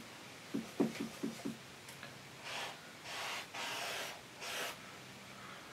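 Paintbrush scrubbing oil paint onto a canvas in several short, hissy strokes, after a few soft taps about a second in.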